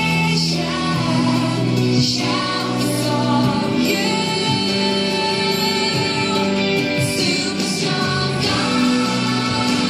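A Christian action song: sung vocals over instrumental backing, with steady music throughout.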